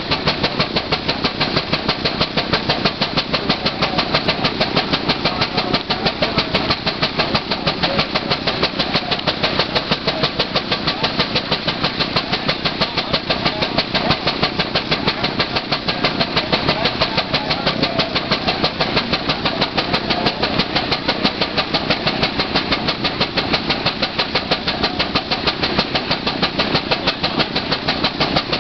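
50 hp Gaar-Scott portable steam engine running on the belt, its exhaust chuffing in a rapid, even beat. It is working under load, belted to a Baker fan.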